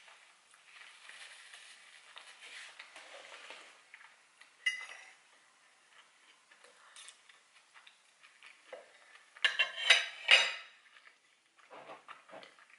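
Metal fork clinking and scraping against a plate of food: one sharp clink about a third of the way in, then a quick run of louder clinks a little after two-thirds through, with a few lighter taps near the end. A soft rustle fills the first few seconds.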